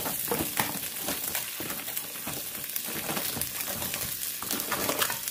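Vegetables sizzling in oil in a wok while cooked crabs are tipped in, their hard shells knocking and clattering against the pan and each other, with a spatula stirring.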